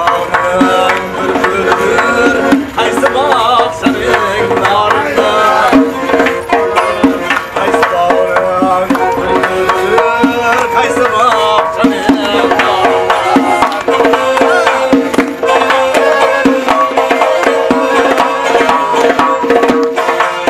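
Lively Uzbek folk dance music: a doira frame drum beating a quick, steady rhythm under accordion and a plucked long-necked lute.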